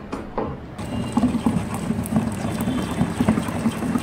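Silicone oil and carbopol powder being stirred by hand in a plastic bucket with a long plastic rod: a continuous churning swish with many small knocks of the rod. This is the carbopol being dissolved into the oil.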